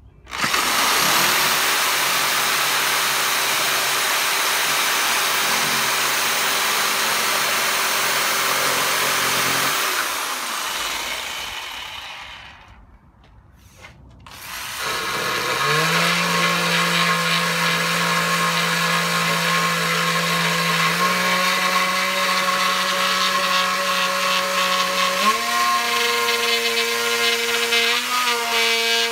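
A reciprocating saw cutting through a wooden board, running steadily for about ten seconds, then winding down and stopping. After a short pause an oscillating multi-tool starts cutting wood with a steady whine whose pitch steps up twice as its speed is raised.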